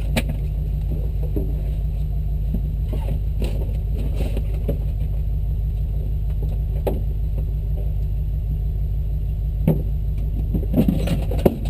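Jeep engine idling with a steady low drone, and a few light knocks and clicks near the end.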